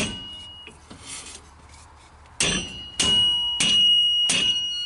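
A hammer striking the end of a metal hub puller clamped on a rear brake drum, driving it to pop the hub off its keyed axle. There is one blow right at the start, then four more in quick succession from about halfway, and the puller rings clearly after each hit.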